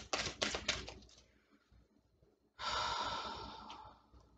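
Tarot cards being handled: a quick run of clicks and taps in the first second, then a hiss lasting about a second and a half that starts suddenly and fades away.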